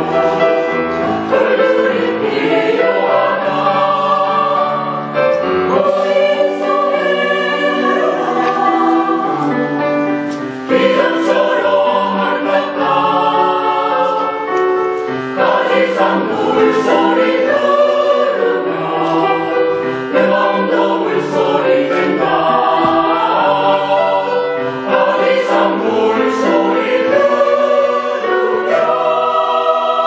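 Mixed choir of women's and men's voices singing a Korean choral song together, phrase after phrase.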